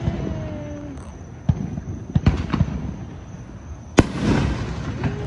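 Consumer fireworks going off across the neighbourhood: several sharp bangs in the first few seconds, then the loudest report about four seconds in as an aerial shell bursts.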